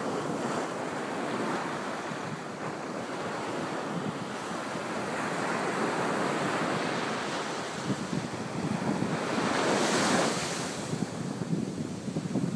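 Surf breaking and washing up a sandy beach, a steady rushing that swells to its loudest about ten seconds in as a wave crashes. Wind buffets the phone's microphone.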